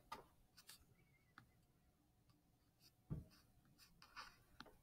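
Near silence, with faint scattered clicks and rustling and a soft thump about three seconds in.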